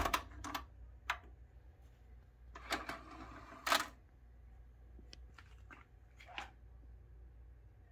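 Optimus DCT-2000 Digital Compact Cassette deck's transport and loading mechanism: a few clicks as playback stops, then a short stretch of mechanism noise ending in a loud clunk about three and a half seconds in as the cassette tray opens, followed by a few faint clicks.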